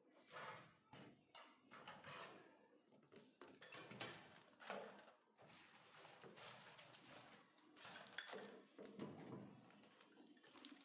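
Faint, irregular clinks, taps and rustling of kitchenware and containers being handled, set down and moved about.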